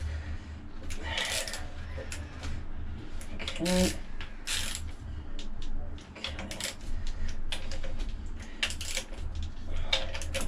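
Socket ratchet clicking in quick irregular runs as flywheel bolts are run in snug, over a low steady hum.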